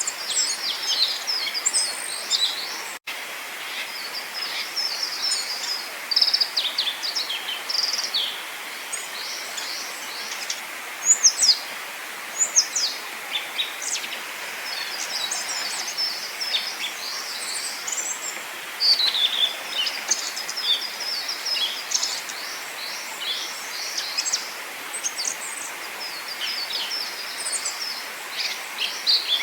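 Several small forest songbirds singing and calling at once: quick, overlapping high chirps and short trills, over a steady background hiss.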